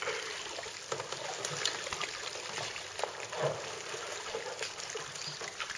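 Water trickling and splashing steadily where an electric bilge pump's jet lands in the lake beside the kayak, as the pump empties the flooded cockpit after a re-entry.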